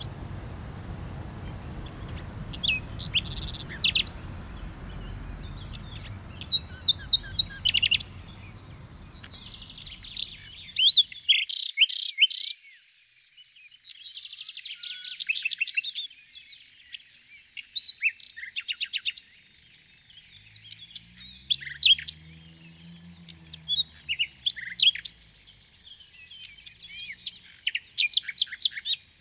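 Songbirds chirping and singing, many short chirps and fast trills from a recorded nature-sound backing track. A low background rumble underneath cuts off suddenly about eleven seconds in, leaving only the birds.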